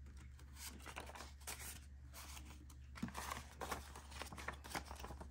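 Paper banknotes rustling and flicking in the hands as bills are counted and shuffled, with soft crinkling from a plastic binder pocket as a placeholder note is handled.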